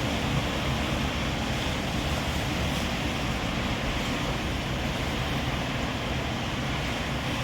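Wind blowing: a steady, unbroken rushing noise.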